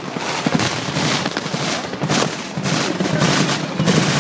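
Staged battle pyrotechnics: rapid, irregular cracks of blank gunfire and small explosive charges going off in quick succession.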